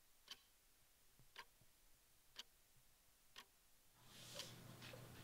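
Clock ticking faintly, one tick a second, in a quiet room. About four seconds in, a low steady hum and hiss come in under it.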